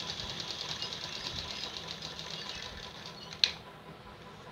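Domestic sewing machine stitching at a fast, even rhythm that fades out about three seconds in, followed by a single sharp click.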